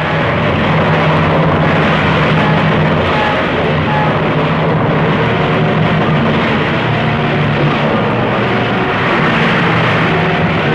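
B-25 bombers' twin radial piston engines running steadily at high power during a carrier takeoff, a loud steady drone.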